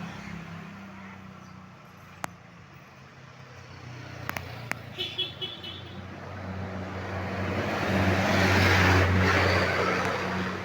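A heavy vehicle, most likely a tour bus, driving past close by: a low engine hum with tyre and road noise that swells to its loudest about eight to nine seconds in, then eases. A few sharp clicks and a brief faint pulsing tone come about halfway through.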